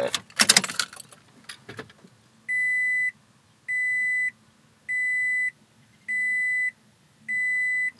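2006 Toyota Tacoma's dashboard warning chime beeping five times in an even rhythm, each beep a steady high tone about half a second long, as the ignition is switched on to power the new head unit. A brief jingle of the ignition keys comes just before the beeps.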